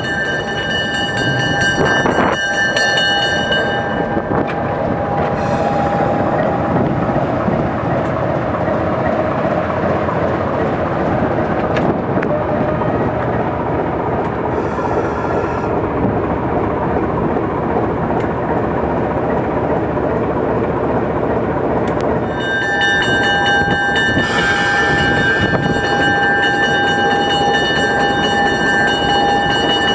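MLW S3 diesel switcher locomotive running as it moves slowly past and over a street crossing. A steady warning tone made of several pitches sounds at the start and again from about three-quarters of the way through.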